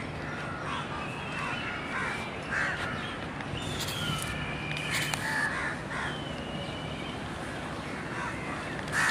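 Crows cawing now and then, with smaller birds chirping, over a steady low hum.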